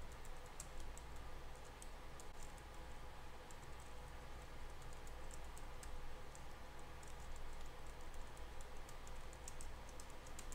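Computer keyboard being typed on: faint, irregular runs of key clicks, heard over a low steady hum.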